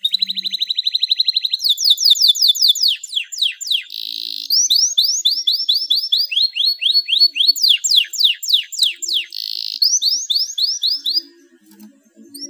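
Domestic canary in breeding condition singing: fast trills of repeated sweeping notes, one run after another at changing speeds and pitches, breaking off briefly near the end.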